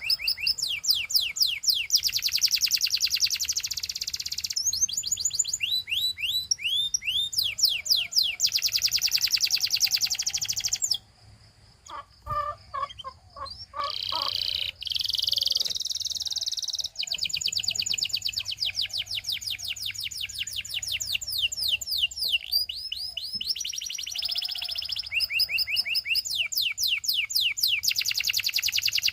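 Canary singing a long song of rapid trills, each phrase a fast run of repeated high notes that shifts to a new note type every second or two. About eleven seconds in there is a brief pause, then a few slower, lower notes and a held whistle before the fast trills resume.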